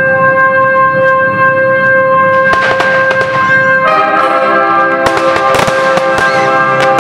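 Orchestral film music with loud, held brass chords that change about four seconds in, played over a fireworks display. Fireworks shells bang and crackle from about two and a half seconds in, growing much denser about five seconds in.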